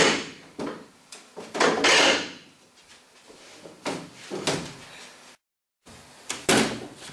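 Metal-legged plastic school chairs and a table being dragged, lifted and knocked together: a series of knocks and scrapes, with a longer scrape about two seconds in.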